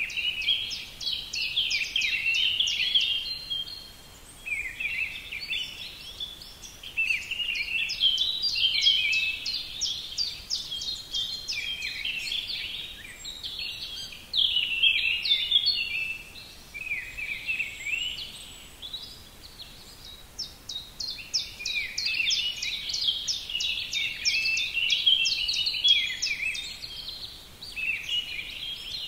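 Songbirds singing: runs of quick, high chirps and trills in phrases of a few seconds, with short lulls between them.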